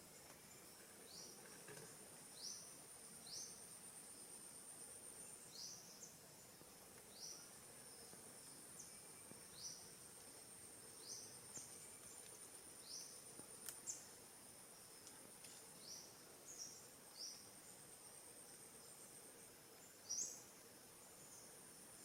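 Forest insects keep up a faint, steady, very high-pitched trill. Short high chirps come about once a second over it, with a couple of louder ones near the end.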